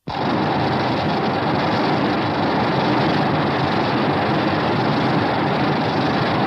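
Sound effect from a 1964 Showa Godzilla film: a dense, steady rushing noise that starts abruptly and holds level without a clear pitch.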